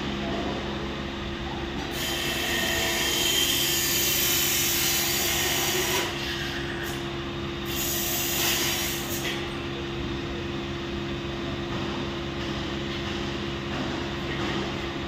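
Steady mechanical hum of machinery with a hissing noise that swells twice, a couple of seconds in and again around eight seconds.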